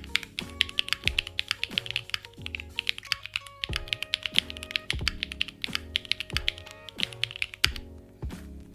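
Mechanical keyboard with Kailh BCP switches being typed on quickly, a dense run of keystroke clacks that briefly thins out about three seconds in and again near the end. Background music with a steady bass pattern plays under the typing.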